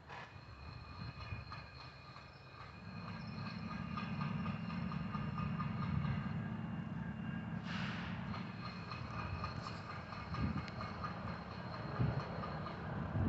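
Diesel locomotives, a GE Dash 8-40BW leading and an EMD GP60M trailing, running with a low rumble that grows louder about three seconds in as the train gets under way. Faint steady high tones sit above the rumble.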